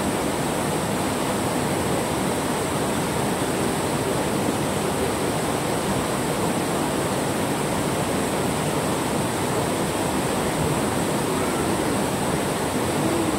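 River water rushing steadily over rocks in a shallow rapid, a constant even roar of flowing water.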